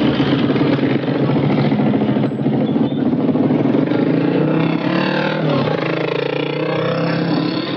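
A motor vehicle's engine running close by, with the voices of a crowd of people mixed in.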